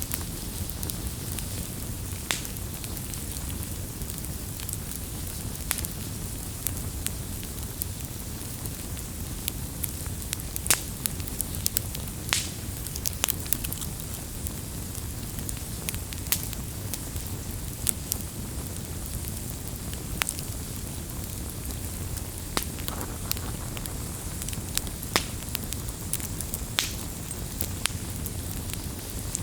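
Campfire burning steadily: a low rumble of flames with frequent sharp, irregular crackles and pops of wood.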